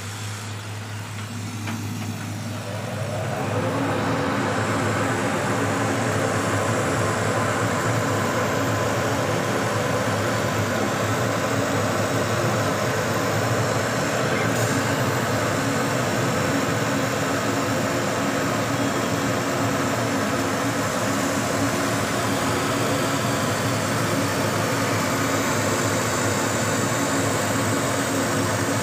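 Laser cutting machine running over an acrylic number plate: a steady machine hum and whir that swells over the first few seconds, then holds level.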